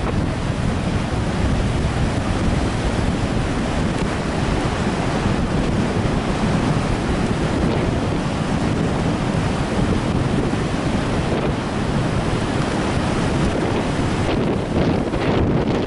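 Storm surf breaking on a sandy beach, with strong wind buffeting the microphone in a steady low rumble.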